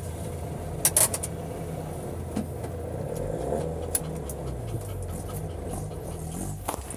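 Subaru 360's small two-stroke twin-cylinder engine running steadily at a low, even speed, with a few sharp clicks or knocks over it, the loudest about a second in.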